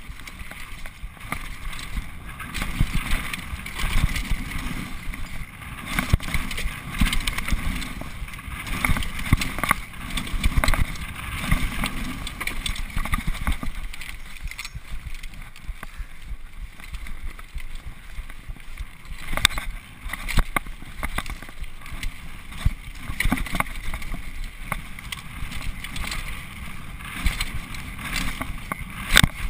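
Xprezo Furax 2012 freeride mountain bike running down a rocky dirt trail: tyres crunching over dirt and stones, the bike clattering and knocking over the bumps, and wind on the camera's microphone.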